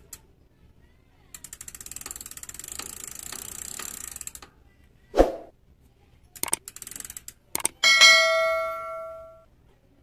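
Bicycle rear hub freewheel ticking rapidly as the wheel spins, stopping after a few seconds, followed by a few sharp clicks. Near the end comes a loud, ringing notification-bell chime that dies away over about a second and a half.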